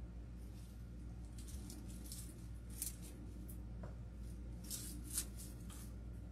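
Faint, scattered snips and rustles as artificial flower stems are trimmed with cutters and handled, a few short crisp ticks over a low steady hum.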